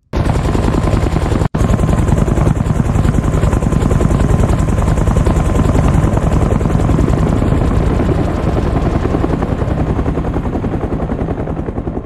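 Sound-designed Huey (Bell UH-1) helicopter flying away, built from looped Huey rotor recordings: a loud, steady, fast rotor beat with a split-second dropout about a second and a half in. Toward the end it eases off and loses some of its highs as the automated low-pass filter and growing reverb carry it into the distance.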